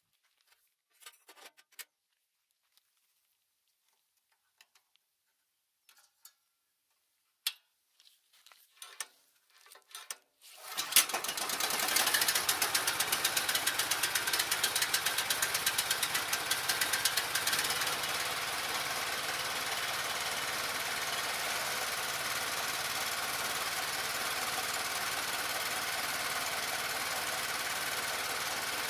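A few faint clicks and taps of handling, then about eleven seconds in a Honda GX390 single-cylinder four-stroke engine starts and runs steadily. Its beat is more marked for the first several seconds, then smoother.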